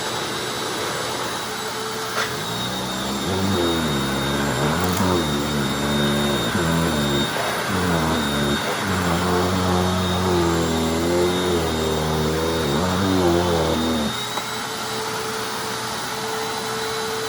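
Hoover Anniversary upright vacuum cleaner running. From about three seconds in, a louder, deeper drone joins the steady motor whine, wavering up and down in pitch, and it cuts off abruptly about three seconds before the end.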